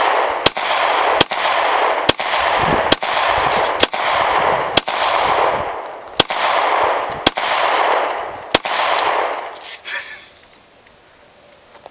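A rapid string of about a dozen gunshots, one every half second to a second and a half, each trailed by a long echo. The firing stops about ten seconds in.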